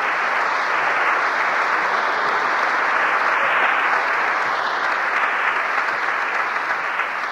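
A church congregation applauding steadily after a joke in a homily, as heard on an old AM radio broadcast recording.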